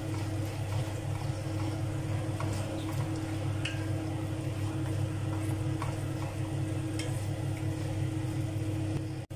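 Shredded salt cod and onions sizzling in a frying pan, stirred with a wooden spatula that scrapes and taps the pan a few times, over a steady low hum.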